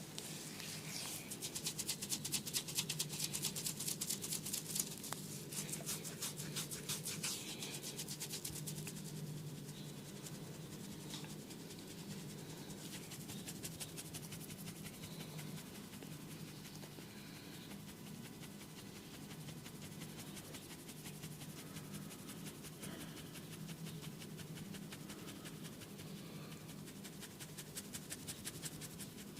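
Hands rubbing an oiled scalp and hair in fast strokes: a dense run of fine, rapid crackling friction, loudest in the first several seconds and softer after.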